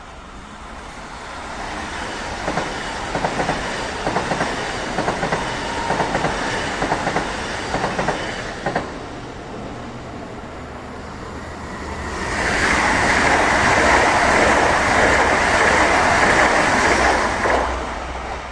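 Two ICE high-speed electric trains passing one after the other. The first gives a rapid, irregular clatter of wheels over rail joints and points. The second follows with a louder, steady rush of wheel and air noise that fades near the end.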